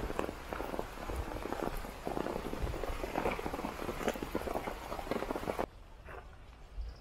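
Footsteps on wet gravelly dirt, a quick uneven run of crunching steps that cuts off suddenly near the end.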